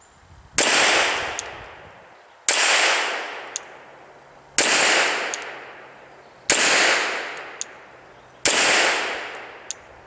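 Glock 34 9mm pistol fired five times in slow, evenly spaced single shots, about one every two seconds, each shot trailing off in a long echo. A faint tick follows shortly after each shot.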